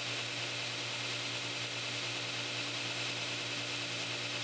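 Belt grinder running steadily with no steel on the belt: a constant motor hum under an even belt hiss.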